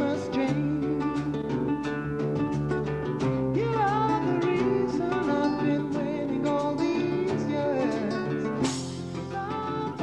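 Music laid over the pictures: a song with acoustic guitar and a singing voice.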